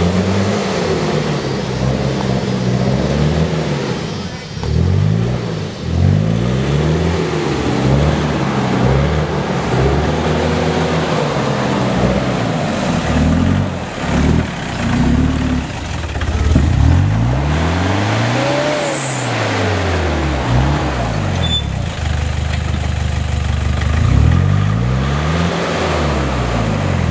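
Toyota Hilux Vigo pickup's engine revving up and easing off over and over, rising and falling in pitch every second or two, as the truck works up a steep muddy climb.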